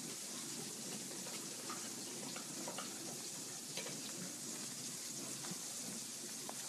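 Turkey burger patties frying in oil in a skillet: a steady sizzle with scattered small crackles.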